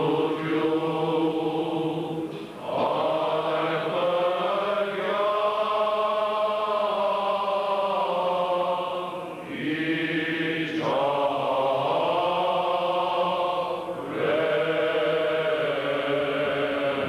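Men's voices of the Armenian Church clergy and assembly chanting a hymn together, in long held phrases with short breaks between them.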